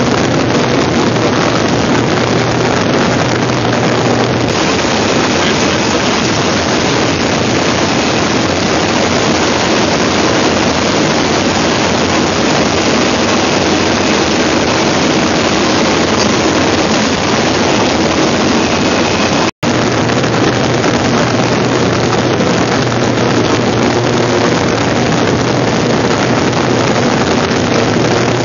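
Steady, loud in-cabin noise of a Pilatus PC-6 Turbo Porter in cruise flight: the turboprop engine and propeller drone at an unchanging pitch, mixed with rushing air. The sound cuts out for an instant about two-thirds of the way through.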